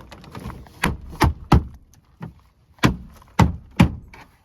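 Six sharp thumps in two quick groups of three: the plastic clips of a Land Rover Discovery 2 rear door panel being knocked home into the door.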